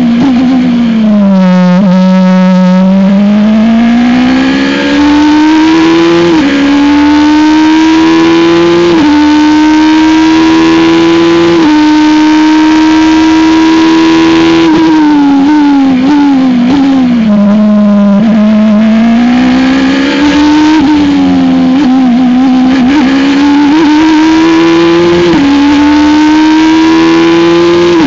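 Radical SR3 RS race car engine heard onboard at high revs. It falls in steps as it slows into a corner, then pulls hard through the gears, its note climbing and dropping sharply at each of three quick upshifts. About halfway through it falls again through several downshifts, stays low briefly, then climbs back up with two more upshifts.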